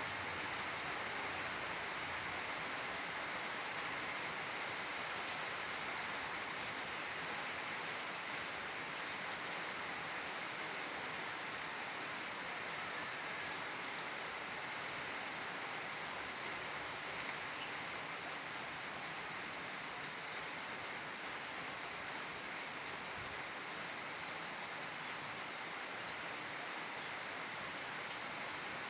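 Steady rainfall: an even hiss of rain with occasional sharper drop ticks scattered through it.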